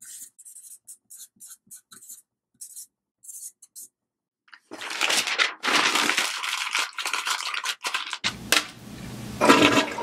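A felt-tip marker squeaking in short strokes on a notepad, then paper crackling loudly as it is crumpled in the hands, and about eight seconds in a toilet starts flushing with a rushing swirl of water.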